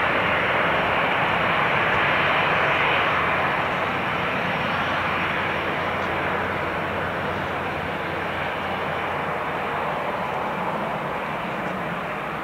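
Distant turboprop airliner, a Bombardier Dash 8-400, running at takeoff power on its takeoff roll: a steady rushing engine noise with a low hum underneath, easing off slowly.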